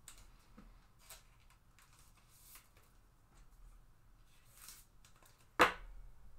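Soft rustling of a trading card and plastic being handled, then one sharp loud snap near the end: a magnetic one-touch card holder clicking shut on the card.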